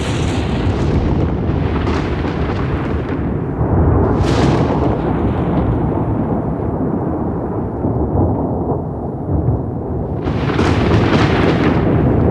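Rolling thunder rumbling on continuously, with sharper crackling peals at the start, about four seconds in and again near the end.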